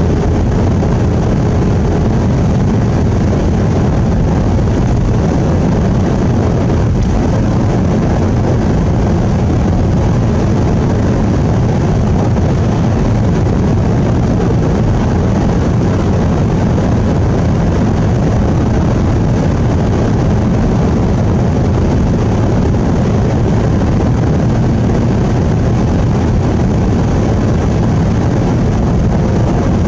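Steady in-cabin noise of a vehicle driving on a snowy road: a constant low rumble of engine and tyres.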